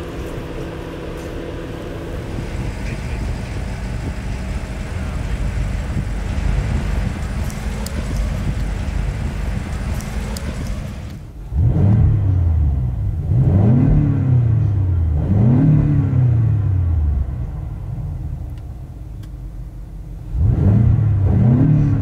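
BMW X5M's 4.4-litre twin-turbo V8 idling steadily, then revved in neutral with the car standing still. About eleven seconds in come three quick revs in a row, each rising and falling back. After a few seconds of idle, a fourth rev comes near the end.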